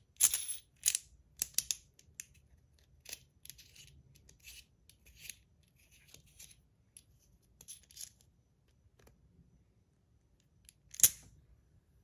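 Sharp clicks and snaps of a PillBug fidget toy's segmented shell being worked by hand: several loud clicks in the first two seconds, softer clicking through the middle, and one loud snap near the end.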